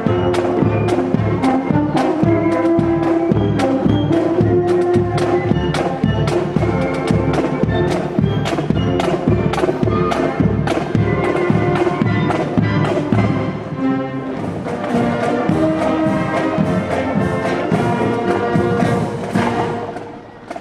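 A marching band playing: brass horns carry the tune over a steady, evenly spaced drumbeat, and the music fades out near the end.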